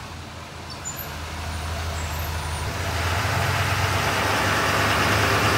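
L5P Duramax 6.6-litre turbo-diesel V8 of a Chevrolet Silverado HD pickup running as the truck creeps slowly forward toward the ramps. Its low, steady diesel hum grows steadily louder as it comes closer.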